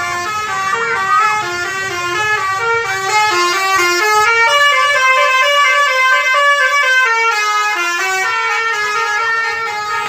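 Intercity bus's "basuri" telolet musical horn playing a tune, stepping quickly from note to note without a break.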